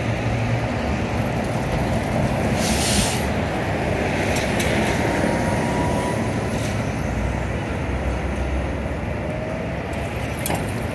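Downtown street traffic with articulated city buses driving past, a steady rumble, and a short hiss about three seconds in.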